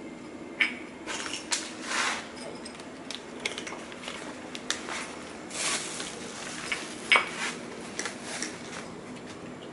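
Cats eating wet cat food from small glass bowls: scattered clinks and clicks of the bowls, with chewing and smacking.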